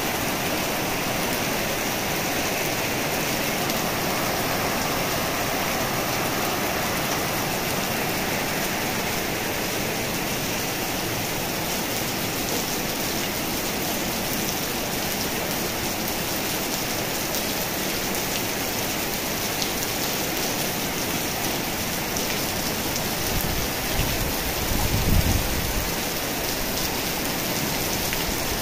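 Heavy rain pouring steadily onto a concrete yard and tiled roofs, a dense even hiss. A brief low rumble comes near the end.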